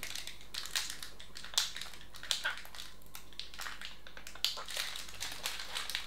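A small packet of trifle sprinkles crinkling and crackling as it is picked at, bitten and pulled at by hand, refusing to tear open: scattered faint crackles with a few sharper ticks.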